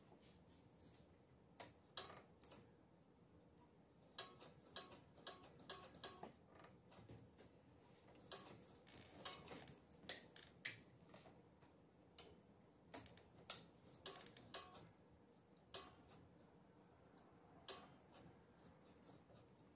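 Light, sharp mechanical clicks and ticks in irregular clusters of a few at a time, from small parts at the mini dirt bike's handlebar being worked while the brake is set up.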